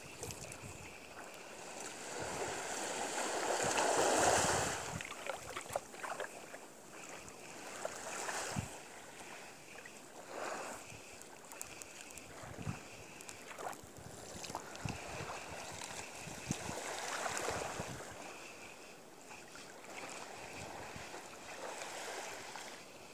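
Wind and water noise rising and falling in gusts, with scattered small clicks from the spinning reel and rod being handled during a cast-and-retrieve.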